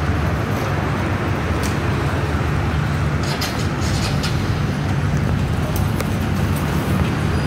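Motorcycle engines idling steadily in a queue at a fuel pump, a low, even hum, with a few light clicks about halfway through and again near the end.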